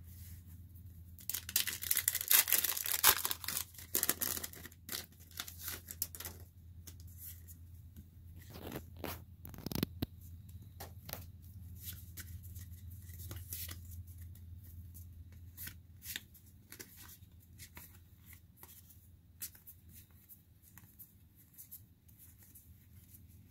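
A Pokémon booster pack's foil wrapper being torn open, a rough ripping lasting about three seconds. It is followed by scattered light clicks and rustles of the trading cards being handled and flicked through, with one sharper tap about ten seconds in.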